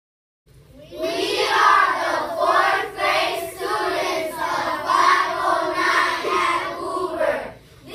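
A group of children singing together, starting suddenly about half a second in.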